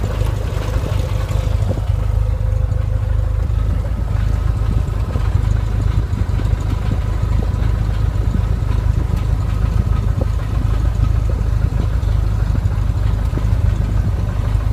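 A single-engine light aircraft's piston engine and propeller running steadily at low power while taxiing, heard inside the cabin as a loud, even low drone with a faint steady whine over it.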